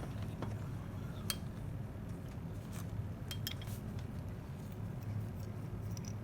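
A few light clicks and clinks of small hard objects being handled, over a steady low hum.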